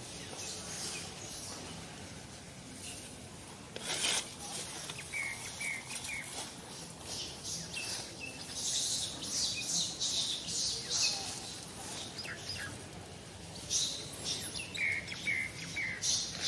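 Birds chirping in short, repeated calls, some in quick groups of three, over a faint outdoor background. A brief burst of noise comes about four seconds in.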